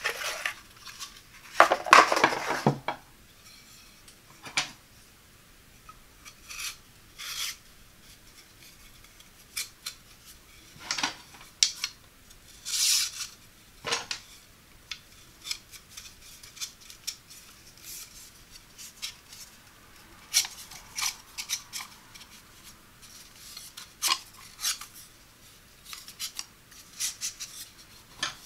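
Wooden parts of a pasta drying rack being handled: a scraping rub about two seconds in as the wooden centre pole slides in its cardboard sleeve. Then scattered short clicks, knocks and rubs as thin wooden dowel arms are pushed through the holes of the upright pole.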